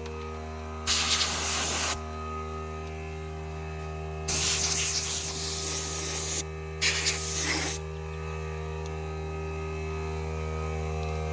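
Compressed air blasting dust off a motorcycle in three hissing bursts: one of about a second, a longer one of about two seconds, then a short one. A steady low hum runs underneath.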